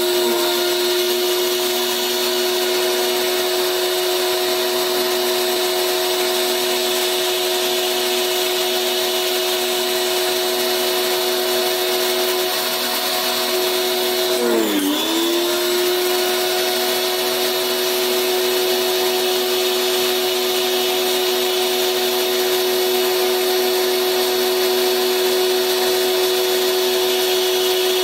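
Electric pressure washer's motor and pump running with a steady whine and the hiss of its spray. About halfway through the pitch sags briefly and comes back up.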